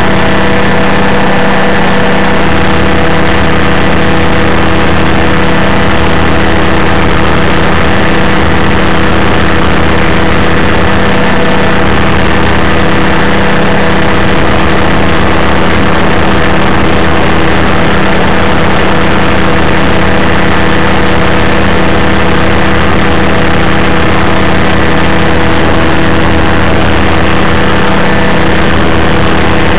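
Rotec Rally 2B ultralight's engine and propeller running at a steady, unchanging speed in flight: a loud, constant drone, with wind rushing past the open cockpit.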